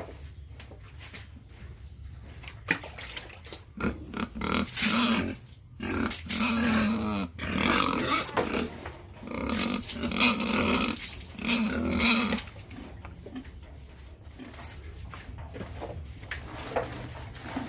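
Pigs grunting and calling in many short, overlapping bursts, busiest from about four to twelve seconds in, over a steady low hum.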